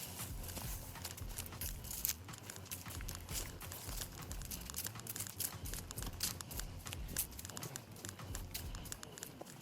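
Irregular crackling and rustling, with a low uneven rumble underneath.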